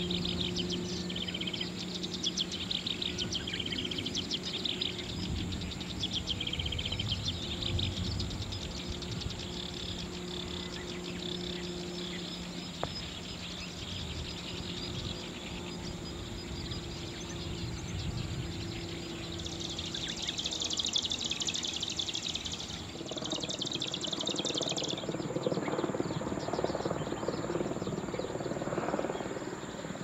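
Marsh grassbird singing: dense, rapidly repeated high-pitched chirping phrases, in a burst at the start and a louder one about two-thirds of the way in. A low steady hum runs underneath, and a low rumble comes in near the end.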